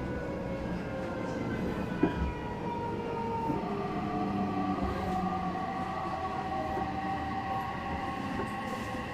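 Odakyu 3000 series EMU running, heard from inside the car: the whine of its fully enclosed MB-5123 traction motors and Mitsubishi IGBT drive falls slowly in pitch as the train loses speed, over a steady running rumble. A single sharp knock comes about two seconds in.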